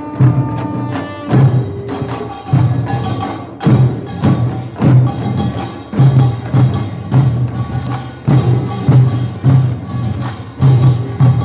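Korean nongak farmers' band percussion playing a steady rhythm: a deep drum stroke about once a second, with quick sharp strikes between the beats.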